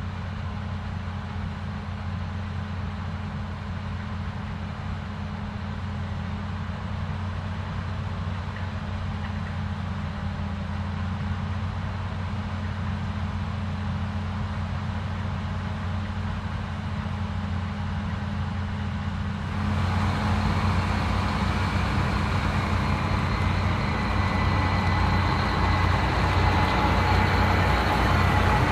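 Claas Lexion 8900 combine harvester running while harvesting rapeseed: a steady low engine-and-machinery hum. About twenty seconds in, it turns suddenly louder and fuller, with added hiss and a thin high whine.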